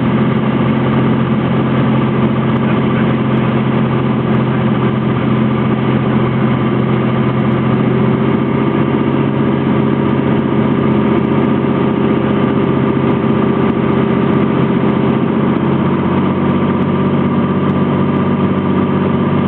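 Steady drone of a Cessna T182T Turbo Skylane's turbocharged six-cylinder engine and propeller, running at a constant setting with no change in pitch.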